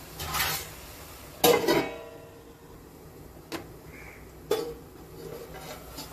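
A stainless-steel plate used as a lid clanks onto a frying pan with a short metallic ring about one and a half seconds in. A small click follows, then a softer ringing clank about three seconds later as the lid is moved again.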